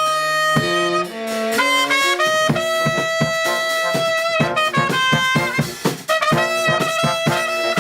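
A four-piece brass band playing an arrangement of a well-known tune: held melody notes over a steady, bouncing low brass line.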